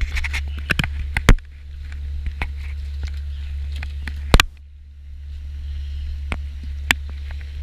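Boat motor running with a steady low hum, overlaid by sharp knocks and clatter of gear being handled on the deck, two of them loud, about a second in and just past four seconds.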